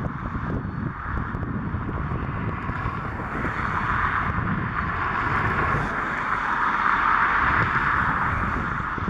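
Southwest Airlines Boeing 737 jet airliner passing low overhead on approach, its engine noise swelling to loudest in the second half. Wind buffets the microphone underneath with a low rumble.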